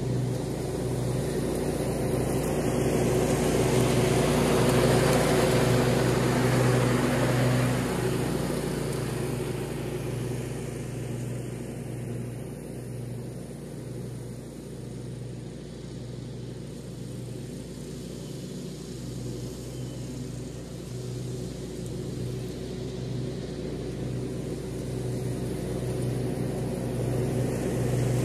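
Riding lawn mower engine running steadily while mowing. It swells about five seconds in, eases off through the middle, then grows louder near the end as the mower comes closer.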